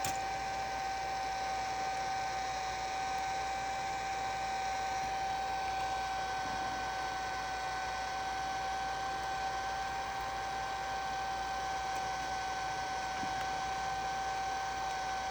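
Heat gun running steadily, a constant whine over a hiss of blown air, heating the phone to soften the adhesive under the part being removed.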